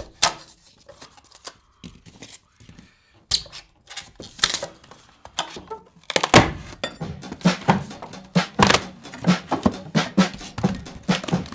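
Hand scraper scraping back spray foam insulation on the boat's wall: short scrapes and knocks in an irregular run. From about six seconds in, background music with a steady beat plays over it.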